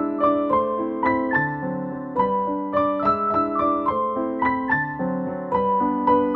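Background music: a gentle piano melody of notes struck one after another in a steady flow.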